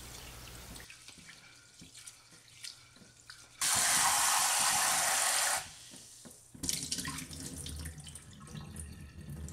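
Rice being rinsed by hand in a clay pot in a stainless steel sink: quiet swishing of grains in water, then the tap running into the pot for about two seconds, loud and hissing. From about two-thirds of the way in comes lower, gurgling splashing as the cloudy rinse water is poured off.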